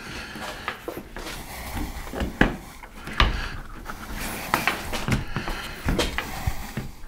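Rubber window seal being worked off the lip of a 1988 Ford Bronco's hard top by hand around the side window glass: irregular rubbing and scraping with sharp knocks, two of them louder a little past two and three seconds in.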